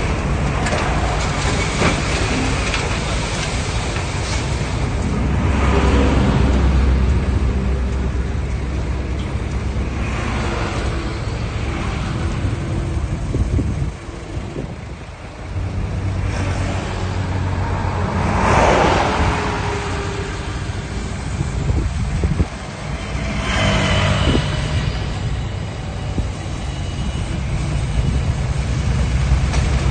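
Heavy diesel earthmoving machinery running, a low engine rumble that rises and falls with load, with several louder rushes of noise, the strongest about two-thirds of the way through, and a short lull about halfway.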